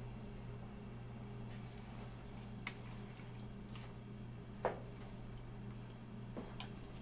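Wooden spatula stirring a pot of beef, tomatoes and herbs in a large aluminium stockpot: a few short wet squelches and knocks, the loudest a little past the middle. A steady low hum runs underneath.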